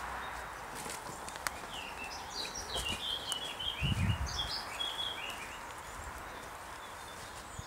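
A songbird singing a quick run of short, high chirping notes for a few seconds, over the walker's footsteps on a woodland dirt path, with the heaviest step about four seconds in.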